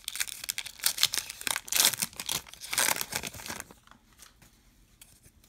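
Foil wrapper of a trading-card pack being torn open and crinkled: a run of rips and crackles that stops after about three and a half seconds.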